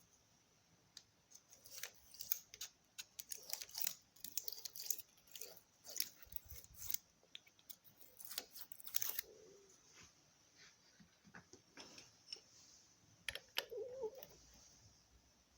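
Scattered small clicks, snips and crunching, as of hand work on wiring connections, likely the stator leads being joined to the loom.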